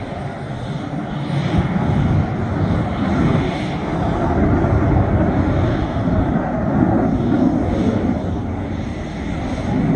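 Jet noise from a Boeing F-15EX Eagle II's two General Electric F110 turbofans at takeoff power: a loud, deep rumble that builds over the first two seconds and holds, easing slightly just before the end.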